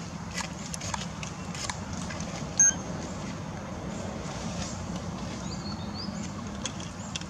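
Outdoor ambience: a steady low hum with scattered light ticks, and one short, sharp, high chirp about two and a half seconds in.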